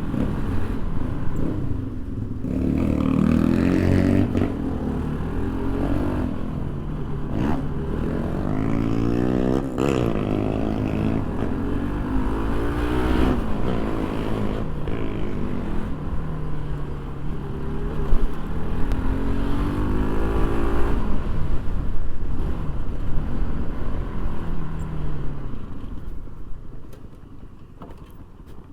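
Motorcycle engine revving up and down as it is ridden over a rough dirt track, with a few sharp knocks from the bumps. Near the end it quietens as the throttle comes off.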